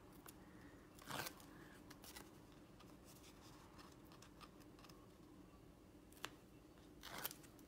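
Faint, brief rasps of Tear & Tape double-sided adhesive tape being worked loose and its backing peeled off, about a second in and again near the end, with a few small paper clicks between.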